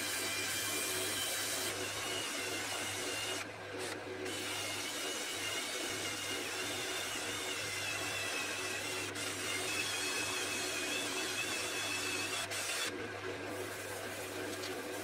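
Small handheld rotary tool with a sanding disc running against an elm vase spinning on a lathe: a high whine that wavers in pitch under load, over a hiss of sanding and a steady low hum. The whine breaks off briefly a few times.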